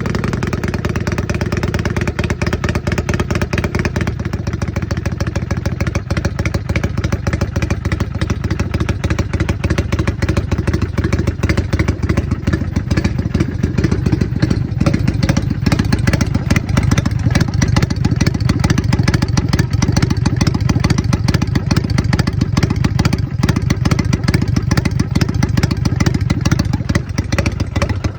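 Kawasaki Vulcan 400 Classic's V-twin engine running steadily, a rapid even stream of exhaust pulses with no revving.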